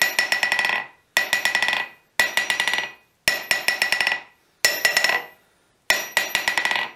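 A hammer is dropped about six times, roughly once a second, onto the face of a 132-pound Vevor anvil and left to bounce. Each drop is a quick run of bouncing strikes with a high ring that dies away within about a second. This is a rebound test of the anvil's face.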